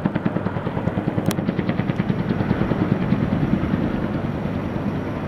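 Helicopter flying with a slung load on a long line, its rotor blades beating in a rapid, steady pulse.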